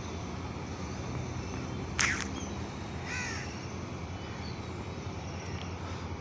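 A crow cawing twice: one loud, short caw about two seconds in, then a fainter one a second later, over a steady low background noise.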